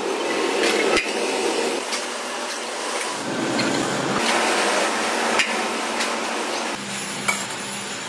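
Workshop press machinery running with metal clanks and sharp knocks as sheet-steel oil filter housings are formed and handled. The sound changes abruptly a few times.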